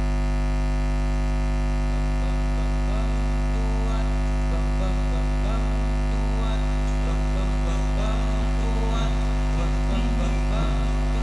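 Loud steady electrical mains hum through the sound system, a deep drone with a buzz of many overtones above it. Faint voices come through underneath from a few seconds in.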